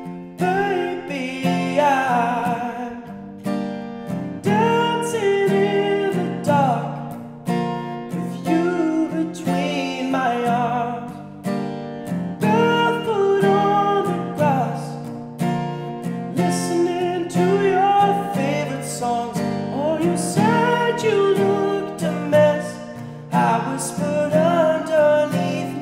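A man singing a slow ballad over a strummed acoustic guitar.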